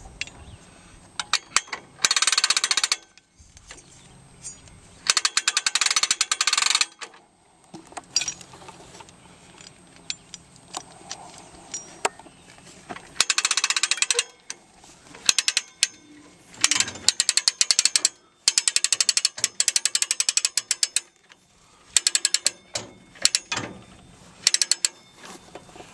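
Hand-crank winch on a steel log arch, its ratchet pawl clicking rapidly in repeated bursts with pauses between as it is cranked to winch up a log held in log tongs.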